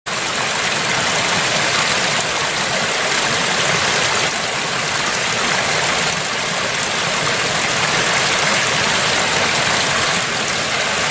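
Small stream pouring and splashing over a little cascade, a steady rush of running water.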